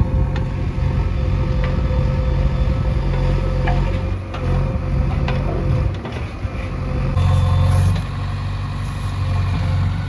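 Heavy vehicle's diesel engine running steadily, a deep rumble with a few light clicks, growing louder for about a second some seven seconds in.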